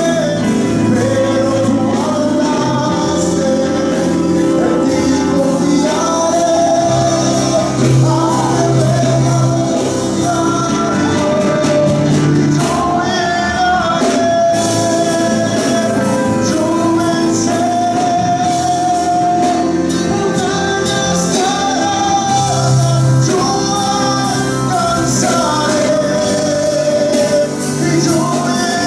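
Live church worship band playing gospel music: a man sings lead into a microphone over electric guitars, keyboard and a drum kit, steady and loud throughout.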